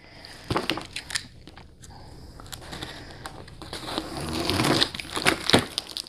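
A utility knife slicing through the packing tape along the top seam of a cardboard box: scraping of the blade through tape and cardboard with crinkling and a few sharp clicks, louder about four seconds in.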